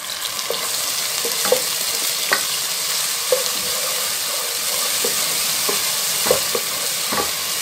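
Ginger-garlic paste and sliced onions sizzling in hot oil, the sizzle growing louder in the first second. A wooden spoon stirs them, scraping and tapping against the pan every so often.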